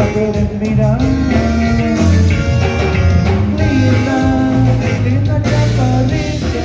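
Live conjunto band playing: accordion melody over bass guitar, electric guitar and a drum kit.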